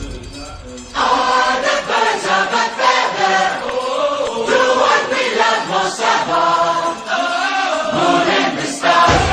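Background music with choral singing that comes in about a second in, after a brief quieter lull.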